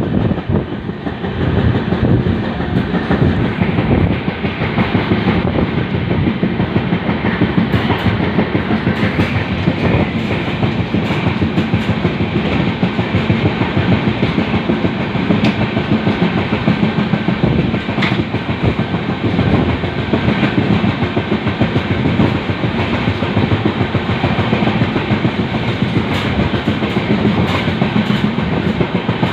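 LHB passenger coaches running on rails: the wheels give a steady rumble with rapid clicking and clatter over the track.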